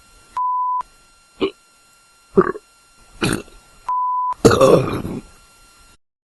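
Human burps: three short burps, then one long loud burp near the end. A short steady beep sounds about half a second in and again just before the long burp.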